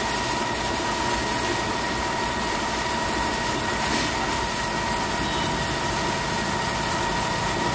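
Car-wash pressure washer's electric pump running steadily: a constant hum with an even high tone over it.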